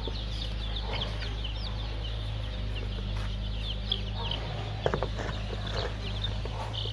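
A brood of young country chicken chicks peeping all together: many short, high chirps overlapping without pause, with a few sharper clicks about two-thirds of the way in. A steady low hum runs underneath.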